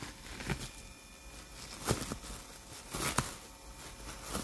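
Cellophane being nosed and pawed by a dog: four short, sharp plastic crinkles about a second apart, the last the loudest.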